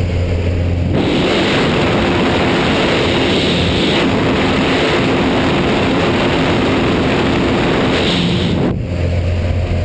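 A small jump plane's engine droning steadily in the cabin; about a second in it switches abruptly to loud rushing slipstream wind from outside the open door, with the engine faint beneath. Near the end it cuts back to the cabin drone.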